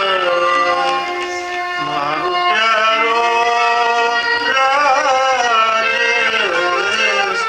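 Rajasthani folk music for a Bhavai dance: a melody of long held, wavering, ornamented notes over lower sustained notes.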